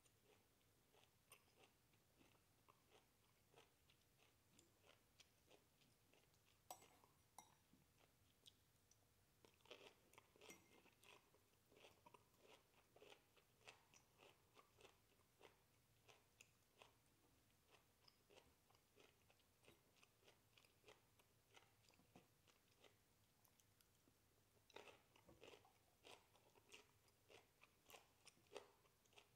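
Faint chewing of broccoli: a steady run of small crunchy clicks from bites and chews, busier about a third of the way in and near the end.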